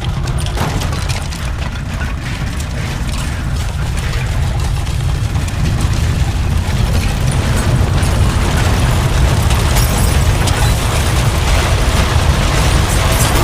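Earthquake rumble sound effect: a continuous deep rumbling with crackling and rattling on top, gradually growing louder.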